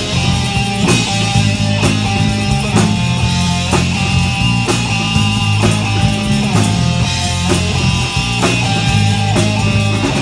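Live rock band playing: electric guitar, drum kit and keyboard, with strong drum hits keeping a steady beat about once a second.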